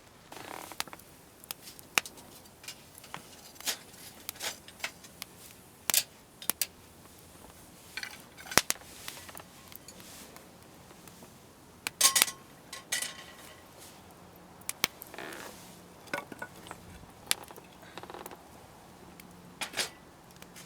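Metal camp cookware and gear being handled: irregular clinks and clatters, a few with a short metallic ring.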